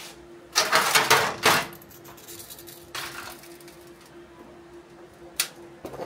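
Steel tongs and a crucible of molten iron clattering and crackling as the iron is poured into a foil-wrapped sand mold: a loud stretch about half a second in lasting about a second, a weaker one a couple of seconds in, then two sharp clicks near the end.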